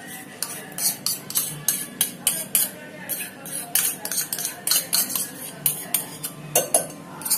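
Kitchen utensils clicking and scraping against bowls in a quick irregular run as ghee is scooped from a plastic bowl into a glass mixing bowl of jaggery and milk, with soft background music underneath.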